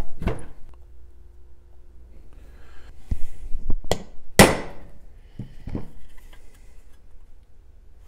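Hammer blows on a steel number stamp, punching into a thin brass sheet laid over a wood block: several separate strikes, the loudest about four and a half seconds in.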